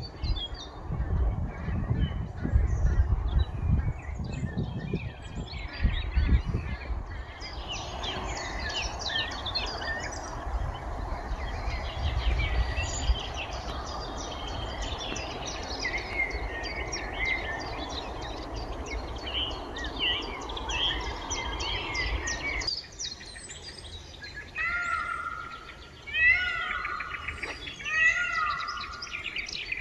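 Several songbirds singing and chirping, over a low, uneven rumble that cuts off suddenly about two-thirds of the way through. Near the end, one bird repeats a clear phrase of falling notes several times.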